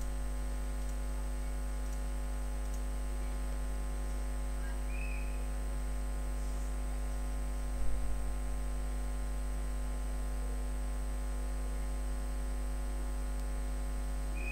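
Steady electrical mains hum with many even overtones and a faint high whine. A single mouse click comes a little past halfway.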